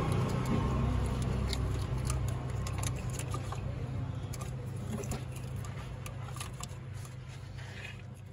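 Scattered small clicks and rustles of hands working an engine-bay wiring harness and stripping back its plastic sleeve, over a steady low hum that fades near the end.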